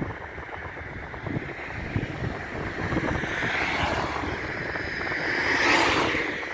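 Road traffic passing close by, each vehicle a swelling and fading rush of tyre and air noise; the loudest pass, a van, comes near the end and drops in pitch as it goes by. Wind buffets the microphone.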